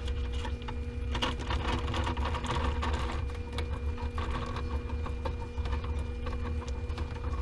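Fresh blueberries tumbling from a plastic container into a saucepan of hot jello, a rush of clicks and small plops mostly in the first few seconds, over a steady electrical motor hum.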